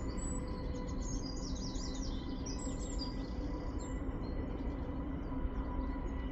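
A small songbird singing a rapid run of high chirps and trills for about the first four seconds, over a steady low background rumble.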